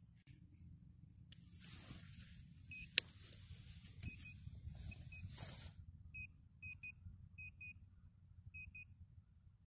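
Soil being scraped and broken up in a small hole with a hand digger, with a sharp click about three seconds in. Then a pinpointer probe in the hole gives a series of short high beeps, mostly in pairs, signalling metal close by. A low rumble runs underneath.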